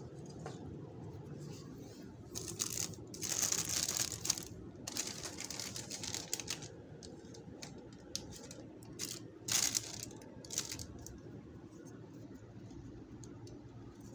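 Clear plastic plant sleeves crinkling and leaves rustling as a hand handles wrapped potted plants. The sound comes in irregular bursts from about two to seven seconds in and again around ten seconds, over a steady low hum.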